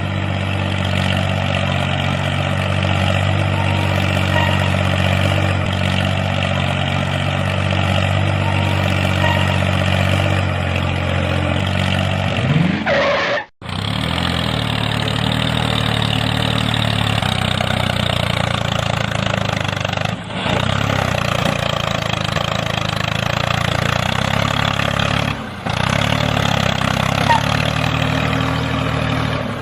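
An engine running steadily at an even pitch. It cuts out abruptly for a moment about halfway through, and there are two brief dips later.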